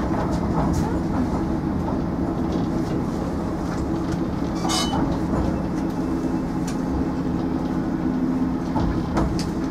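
Tram running along its track, heard from inside the car: a steady motor hum with a few held tones, light clicking of the wheels over the rails and points, and a short high hiss about halfway through.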